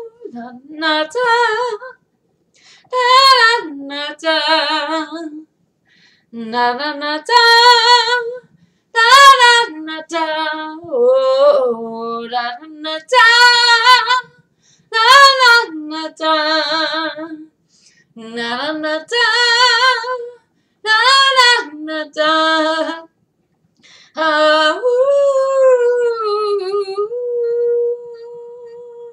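A woman singing unaccompanied, in short phrases with a wavering vibrato and brief pauses between them, ending on one long held note near the end.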